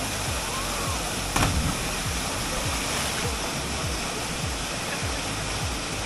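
Steady rushing of the Du Gia waterfall pouring into its pool, with one brief louder sound about a second and a half in.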